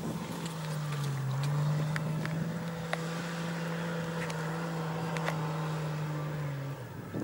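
SUV engine running under load at steady revs as it climbs a steep grassy slope; its pitch dips briefly about a second in, then recovers, and the engine note drops away near the end. A few sharp ticks are scattered through.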